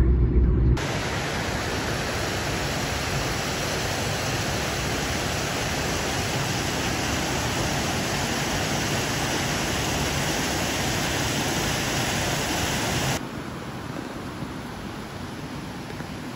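Steady rushing of a rocky mountain stream. About 13 seconds in it drops abruptly to a quieter, steady rush. A brief low car-cabin rumble comes before it at the very start.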